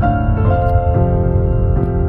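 Background music: piano or electric-piano notes changing about every half second, with a steady low bass.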